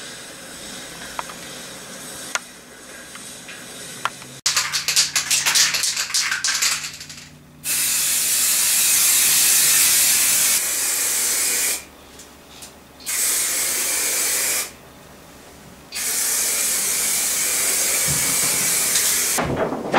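Aerosol spray paint can hissing in three long bursts, the first about four seconds long, then a short one and a longer one, with brief pauses between. A rattling run of clicks comes just before the first burst.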